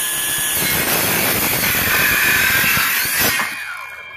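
Cordless Craftsman C3 19.2-volt 5 1/2-inch trim saw, fitted with an Admiral blade, running at full speed and cutting through an old treated board. Near the end the trigger is released and the motor and blade spin down with a falling whine.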